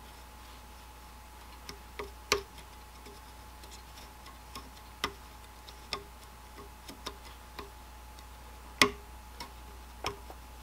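Two hand-cut gears on brass-tube axles turned against each other by hand, their teeth meshing in irregular clicks and crunches, a few much louder than the rest. The teeth are still unfiled from cutting on a bandsaw, so the mesh crunches and catches in spots.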